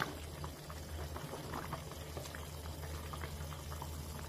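A pot of urad dal dumplings in spiced gravy simmering, with small bubbles popping and crackling over a steady low hum. There is one light tap of a spatula at the very start.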